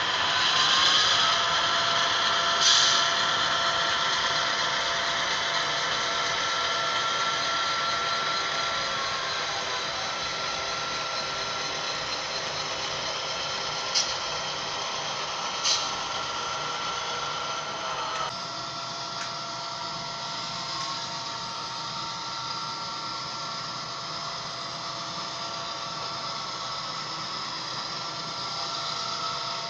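HO-scale model diesel locomotive's DCC sound decoder playing steady diesel engine sound through its small onboard speaker, together with the model's running noise on the track. Two short sharp sounds come a little before and after the middle, and the sound shifts abruptly a little past halfway.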